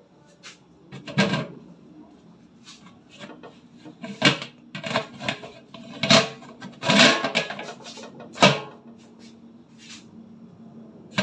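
Cookware being handled: several sharp knocks and clatters as a baking tray is set into a large kadai and covered, with smaller taps between.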